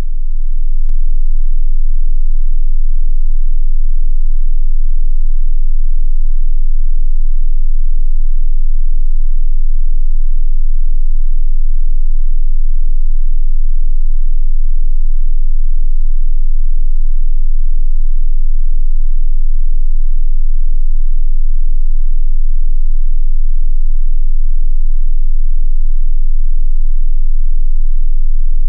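Steady 18.98 Hz infrasonic sine tone, the so-called ghost frequency, played very loud and swelling to full level in the first second, with faint overtones above it.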